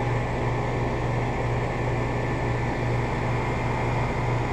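A 5-ton Trane XR14 central air conditioner's outdoor condensing unit running: a steady low hum with an even rush of air from the condenser fan.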